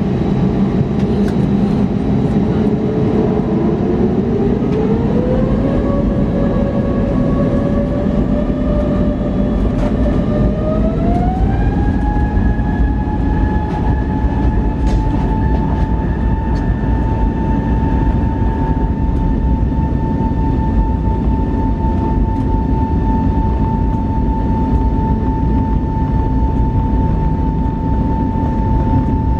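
Airbus A320neo's turbofan engines spooling up for takeoff, heard from inside the cabin: a whine that climbs in two steps over several seconds, then holds steady at takeoff thrust over a heavy rumble of the roll.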